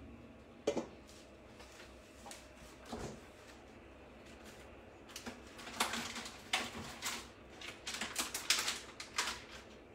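Light, irregular clicks and taps of kitchen utensils against pans and dishes at the hob, a few at first, then a quick cluster in the second half.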